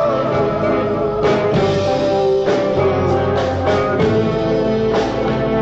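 Rock band playing an instrumental passage with no singing: held instrumental notes and guitar over drums.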